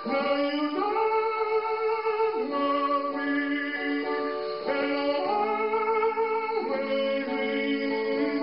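A man singing a slow tune into a microphone over an electronic keyboard's sustained chords, which change every second or two.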